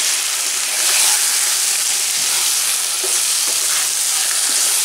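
Lamb brain pieces sizzling in hot oil with fried onions and spice masala in a frying pan, with a steady hiss, while a spatula gently stirs them, scraping the pan a few times.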